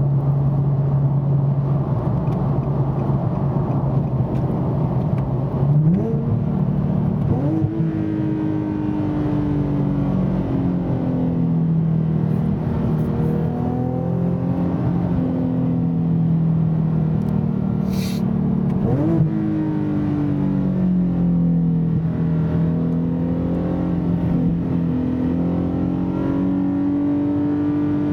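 Nissan 370Z's 3.7-litre V6 through a Fast Intentions exhaust with carbon-fibre resonators and non-resonated high-flow cats, heard from inside the cabin. It drones steadily at cruise, then the revs jump up sharply three times, twice close together about six seconds in and once more about two-thirds through, as the seven-speed automatic downshifts in manual mode, holding high revs as the car slows. A short click comes just before the third jump.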